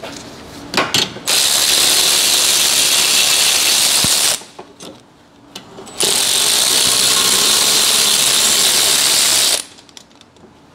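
Cordless electric ratchet running in two bursts of about three seconds each, spinning out 17 mm bolts on a rear brake caliper that were already broken loose by hand. A few clicks of the socket going onto the bolt come before the first run.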